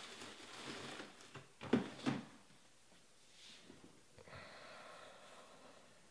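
Handling noise at a desk: rustling, two dull knocks close together about two seconds in, then a short breathy hiss.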